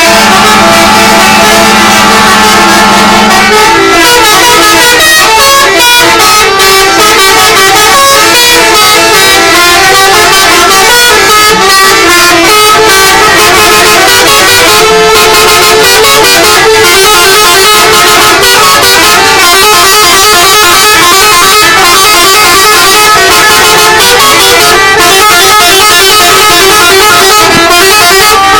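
Indonesian bus 'telolet' musical horns, several sounding together and overlapping, very loud. A steady held chord for the first few seconds gives way to fast warbling runs of changing notes.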